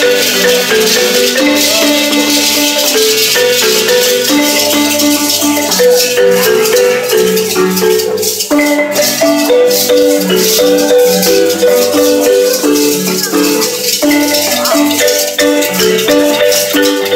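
Marimba playing a dance tune in held, rolled notes, with hand rattles shaking steadily over it.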